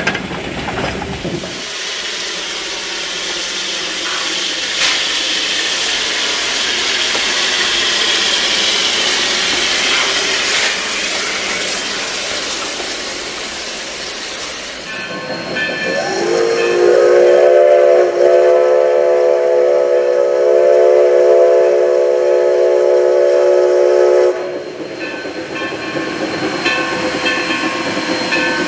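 A Shay geared steam locomotive rolls past close by with its log cars, a dense rush of hiss and running noise with a few knocks. About sixteen seconds in, its multi-note chime steam whistle sounds one long blast of about eight seconds. After a sudden drop to quieter hiss, a steam whistle begins again near the end.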